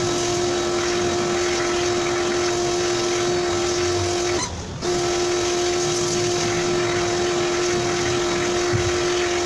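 Pressure washer running and spraying water, a steady motor hum over a hiss of water. It cuts out briefly near the middle and then starts again.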